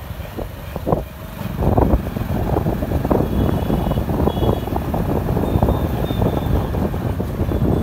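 Wind buffeting the microphone over a low rumble of road and engine noise from a moving vehicle, growing louder about a second and a half in. A few faint high tones come and go in the middle.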